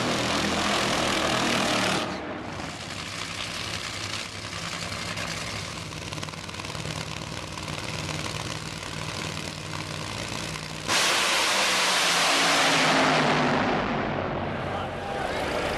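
Drag racing cars' engines at full throttle. A loud roar cuts off about two seconds in, leaving a lower, steady engine sound. About eleven seconds in another loud roar starts suddenly, lasts about three seconds, then fades with a falling pitch.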